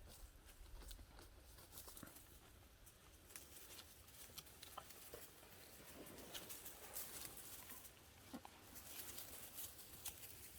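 Near silence, broken by faint, scattered rustles and crackles of movement over dry forest floor, as of dogs or feet moving through leaf litter and twigs.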